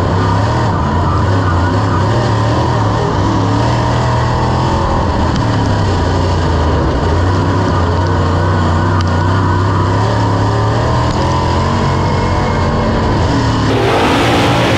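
Dirt late model race car's V8 engine running hard on track, heard from an onboard camera inside the cockpit, its pitch rising and falling as the driver works the throttle.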